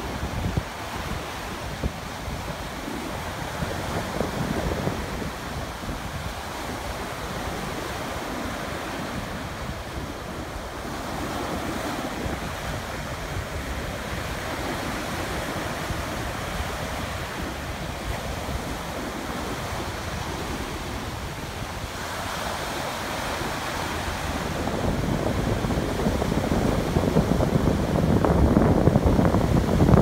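Ocean surf breaking and washing up on a sandy beach, with wind rumbling on the microphone. It grows louder over the last few seconds.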